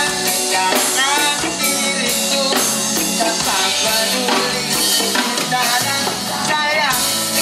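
Live reggae band playing, with a man singing into a handheld microphone over drums and electric guitar.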